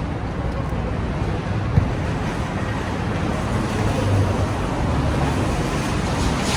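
Steady low rumble of outdoor traffic noise, with one short knock just under two seconds in.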